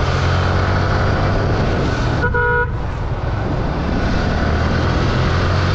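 Motorcycle engine running steadily under wind noise while riding, with one short horn toot of about half a second a little over two seconds in.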